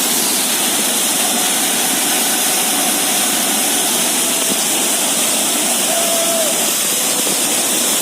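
Waterfall pouring with a loud, steady rushing roar of falling water.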